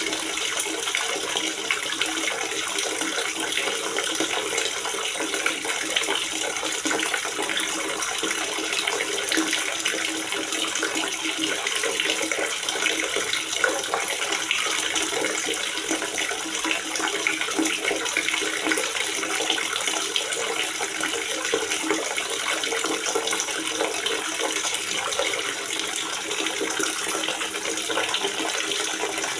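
Water gurgling and splashing steadily into a water reservoir, like a running tap pouring into a tank.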